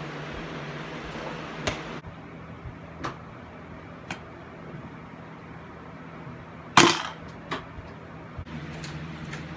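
Several short, sharp knocks and clatters of thrown objects landing, the loudest about two-thirds of the way through, over a steady low hum.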